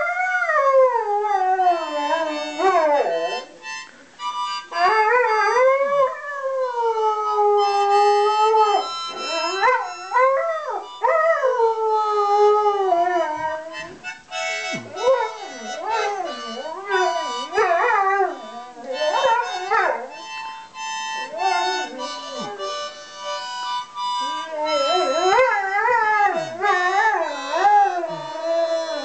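A dog howling along to a harmonica: long, loud howls that swoop up and down in pitch, over steady held harmonica chords.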